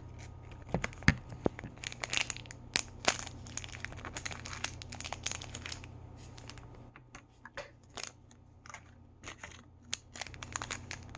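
Packaging of a miniature toy bottle being crinkled and torn open by hand, a run of quick rustles and clicks that thin out in the second half.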